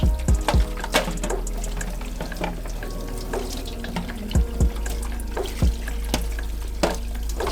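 Water running from a tap, with background music playing over it: held notes and a steady low beat.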